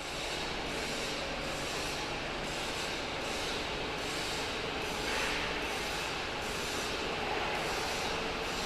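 CK61100 CNC metal-turning lathe running, a steady mechanical noise with a faint pulsing in the highs about twice a second.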